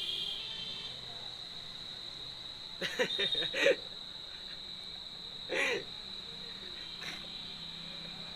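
A steady, high-pitched chirring of insects in the background, with a few brief laughs and hooting vocal sounds from the men, about three seconds in and again about five and a half seconds in.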